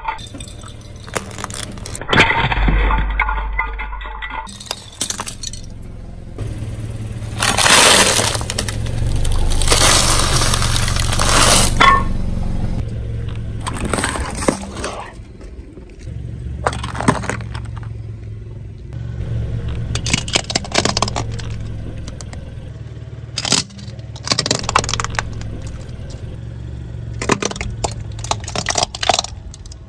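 A car tyre crushing a series of objects: sharp cracks and crunches of breaking plastic, and a long fizzing hiss of soda spraying from burst cans. Near the end small toy cars crack under the tyre.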